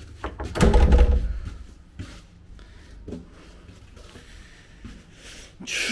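Handling noise from a handheld camera being swung around a room: a loud low rumble about a second in, then a few light knocks and taps, and a breathy rush near the end.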